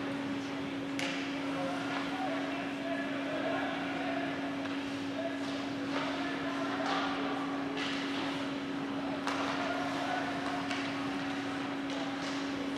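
A steady electrical-sounding hum under a haze of background noise, with faint indistinct voices and a few sharp clicks or knocks.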